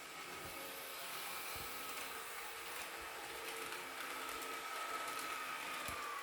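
Sound decoder in an N-scale Kato ET425 model electric train playing the electric motor whine of the real train through its small speaker, a steady whine whose pitch starts to fall near the end, over a faint hiss with a few soft clicks.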